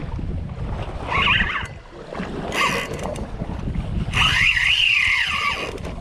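Large saltwater spinning reel whirring in two bursts as a hooked fish pulls against the bent rod, the second burst longer with its pitch rising and falling. Under it, a steady rumble of wind and boat noise.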